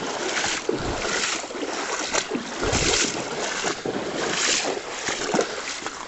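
Wind buffeting the microphone in gusts, with deep thumps, over the rush of river water.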